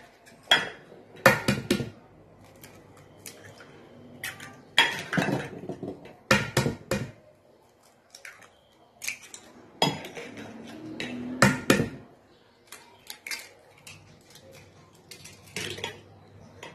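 Eggs being cracked into a glazed earthenware bowl: a series of sharp knocks of eggshell on the bowl, some coming in quick clusters.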